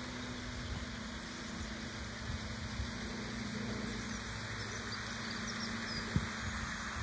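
OO gauge model train running along garden track: a steady hum with a low rumble of wheels on the rails, and a light knock about six seconds in.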